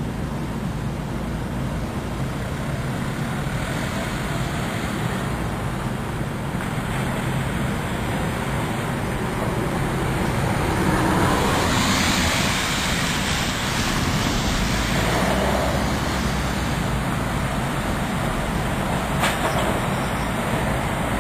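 Steady road-traffic noise on a street, with a vehicle passing that swells to a peak about halfway through.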